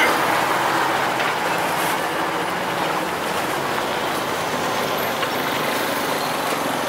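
A motor vehicle going by: a steady engine rumble with road noise, loudest at the start and easing off.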